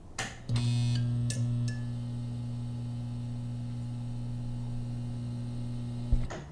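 Short intro music: a few bright notes in the first couple of seconds over a steady held low tone, which ends abruptly about six seconds in.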